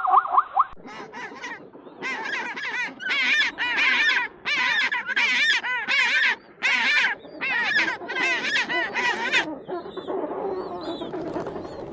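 Farm birds giving a run of short, repeated calls, about a dozen in eight seconds, each rising and falling in pitch; fainter calls carry on near the end.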